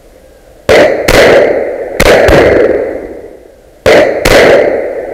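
Shotgun shots: six sharp, very loud bangs in three quick pairs, the two shots of each pair a fraction of a second apart, each ringing away over about a second.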